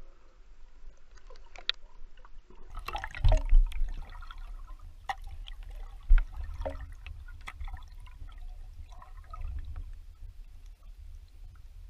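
Water splashing and trickling in small irregular bursts, over a low rumble on the microphone, with two louder thumps about three and a half and six seconds in.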